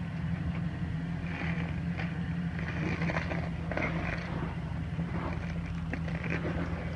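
Jeep Wrangler's engine running steadily at low revs while it crawls over a rock ledge, with scattered short crunches and scrapes from tires and the underbody on rock.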